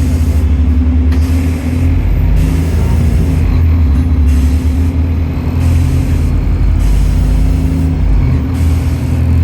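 City bus engine running, a loud low drone whose pitch shifts slightly now and then as the bus drives.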